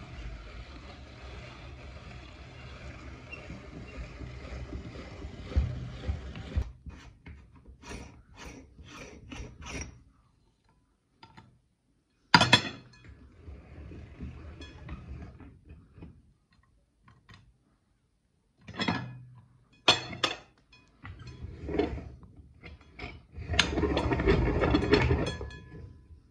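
Hand-cranked meat grinder being turned, grinding ice cream cones and forcing them out through the plate: a steady rough grinding for about six seconds. Then scattered metal clicks, clinks and knocks as the grinder is handled and taken apart, with a louder rattling scrape near the end.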